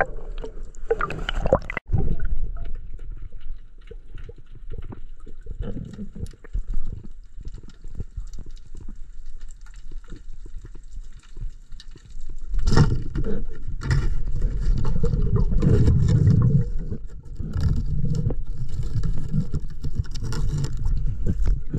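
Muffled underwater noise picked up by a free diver's camera: low water rush and gurgling with scattered clicks and scrapes, getting louder about twelve seconds in.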